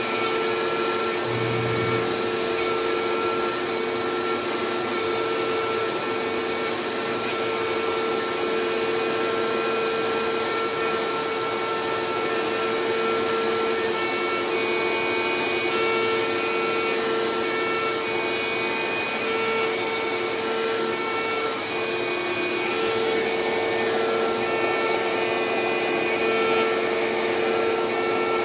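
CNC router's DeWalt router spindle running with a vacuum pulling dust through the dust shoe, routing a carbon fiber sheet. The noise is steady, with a constant hum-like whine, and grows a little louder about three quarters of the way through.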